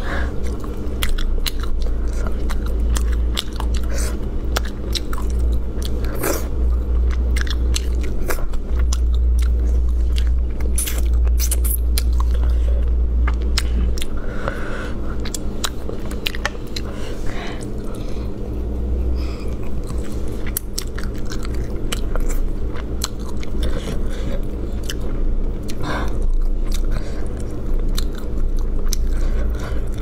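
Close-up chewing and biting as spiced braised rabbit head is eaten, with many sharp clicks and crunches of meat and small bones being pulled apart and chewed. A steady low hum runs underneath.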